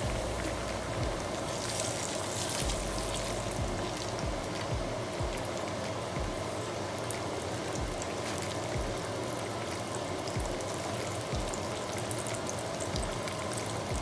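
Breaded cube steak frying in a skillet of hot oil: a steady, dense sizzle with crackling.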